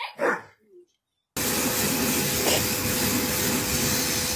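A short vocal sound, then after a moment's silence a pressure washer comes in abruptly: a steady hiss of spraying water over the constant hum of its pump.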